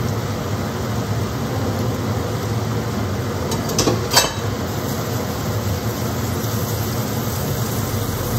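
Kitchen range hood vent fan running with a steady, fairly loud whoosh, described as a bit noisy. Two short clicks come about four seconds in.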